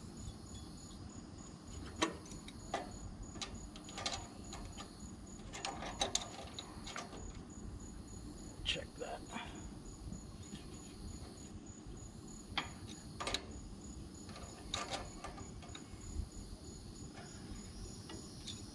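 Scattered light clicks and clinks of hand tools on metal as the valve clearances on a riding mower's engine are adjusted and checked, over a steady chirring of crickets.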